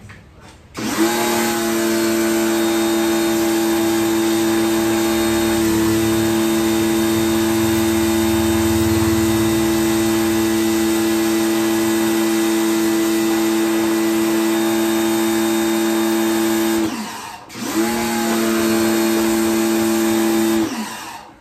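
Kawasaki ACK 302 pressure washer running with a steady hum and the hiss of its spray. It starts about a second in, cuts out for a moment about four seconds before the end, starts again, and stops just before the end.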